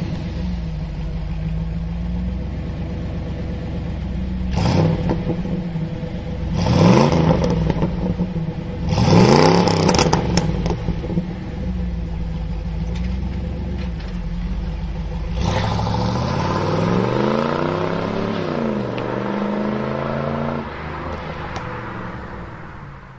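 1988 Pontiac Firebird with a Magnaflow performance exhaust, heard from behind: steady idle, then revved three times, each rev rising and falling. It then pulls away and accelerates, and the sound fades with distance near the end.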